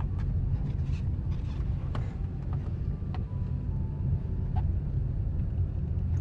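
Steady low engine and road rumble heard from inside a Suzuki Ertiga's cabin as it drives slowly in traffic, with a few faint scattered clicks.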